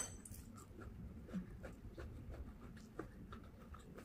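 Close-miked eating sounds of rice with tempe and petai eaten by hand: soft chewing with small, irregular mouth clicks and smacks, and fingers picking food off a ceramic plate.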